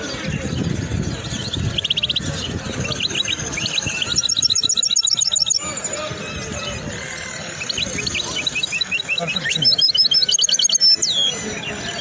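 Caged songbird singing runs of rapid, high trills in several bursts, over the steady murmur of a busy bird market.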